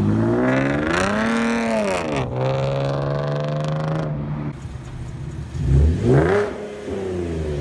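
Chevrolet Camaro RS engine revving through its modified exhaust. A long rev climbs and falls back over the first two seconds, the engine holds a steady pitch for a couple of seconds, and a second short rev comes about six seconds in.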